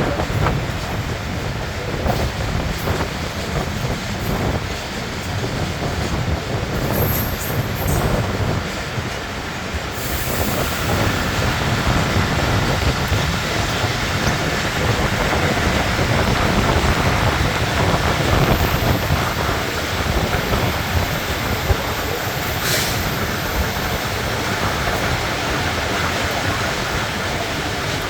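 A passenger express train rolling into a station. The wheels clack over rail joints, and faint wheel or brake squeal comes in during the second half as it slows.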